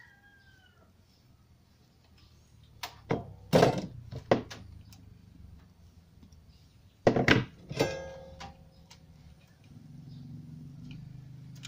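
Hand tools clicking and knocking: diagonal wire cutters working a wire, in two short clusters of sharp clicks about three seconds in and about seven seconds in. One knock near eight seconds leaves a brief metallic ring.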